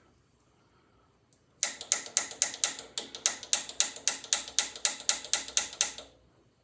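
Piezo igniter on a gas water heater's pilot being clicked over and over, about eighteen sharp clicks at roughly four a second, sparking to light the pilot.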